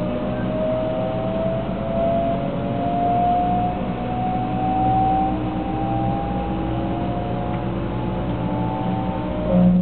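Shinkansen 300 series electric traction motors and inverters whining as the train gathers speed, heard inside the passenger car: several tones climb slowly together over a steady low rumble, and the tone pattern shifts abruptly near the end.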